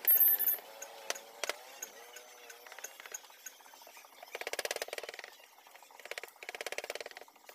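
Hand wood-carving chisel cutting into a carved wood panel: two rasping strokes of rapid chatter in the second half. A short, loud, high-pitched sound comes right at the start.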